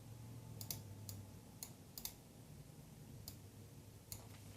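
Faint, scattered clicks of a computer mouse and keyboard, about six separate clicks spread over a few seconds, over a low steady hum.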